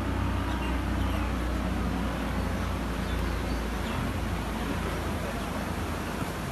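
A vehicle engine running steadily with a low hum, which weakens somewhat about four seconds in.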